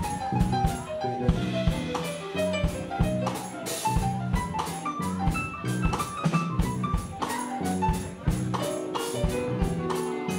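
Live band playing a busy, jazz-leaning groove: drum kit with rapid, evenly spaced hits, a bass guitar line and short piano or keyboard notes.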